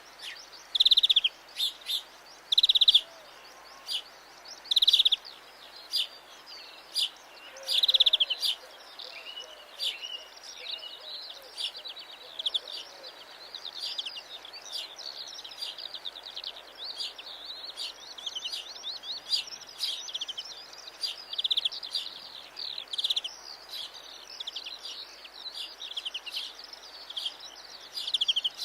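European greenfinch singing: loud, rapid trilled phrases, separate and spaced a second or so apart at first, running into a near-continuous twittering series of fast trills after about ten seconds.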